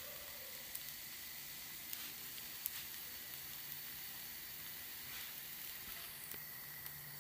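Wheat-flour tortilla cooking in a nonstick frying pan over a low flame: a quiet, steady sizzling hiss with a few small ticks.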